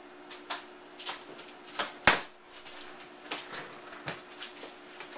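Cardboard box being handled and its top flap pulled open by hand: a run of short scrapes and rustles, with one sharp knock about two seconds in.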